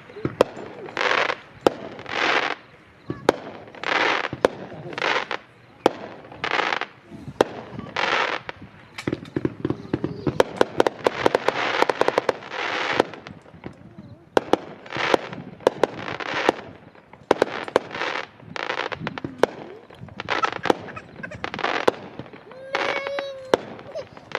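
A 98-shot consumer fireworks aerial firing, with a quick run of shots about once a second and sharp crackling pops between them, thickest midway through. Near the end a short held pitched tone rises over the shots.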